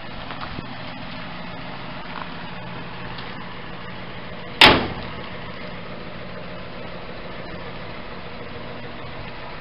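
1966 Dodge D100 pickup's engine idling steadily, with one sharp bang about halfway through.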